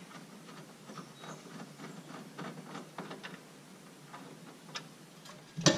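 Faint, irregular small clicks and ticks of hands working a fastener among engine-bay parts, with one louder knock near the end.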